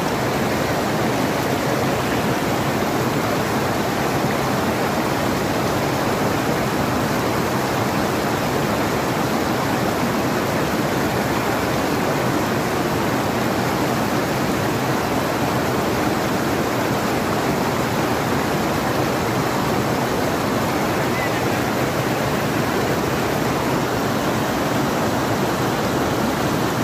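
Fast mountain stream rushing over boulders: a steady, unbroken noise of white water.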